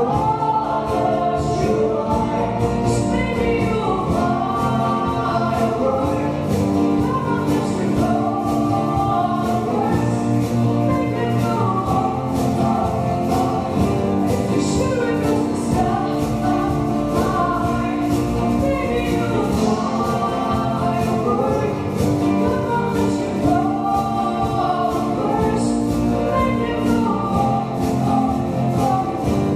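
Live band performance: a woman sings lead into a microphone over acoustic guitar, upright bass, drums and keyboard, playing continuously.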